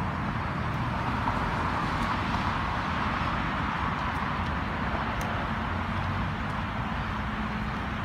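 Steady rumble and hiss of road traffic.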